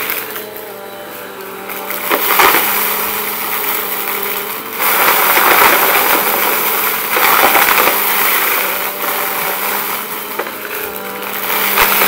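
Bissell compact upright vacuum running on carpet, its steady motor hum overlaid by loud crunching and rattling as it sucks up a pile of dry debris and lint. The crunching is heaviest from about five to nine seconds in and swells again near the end.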